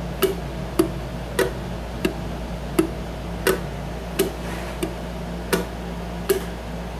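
Ukulele finger-picked slowly in a three-beat picking pattern: thumb and ring finger pluck the two outside strings together, then the middle and index fingers pluck single strings. The notes are short and crisp, about ten evenly spaced plucks.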